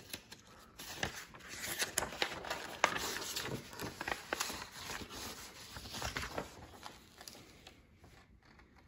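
Paper being handled: loose printed sheets rustling and the pages of a spiral-free instruction manual being turned by hand, a quick run of crinkles and flicks that thins out near the end.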